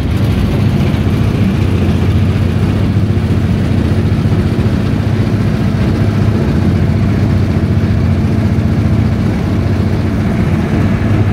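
Engine of a small river boat running steadily at an even speed, a constant low hum.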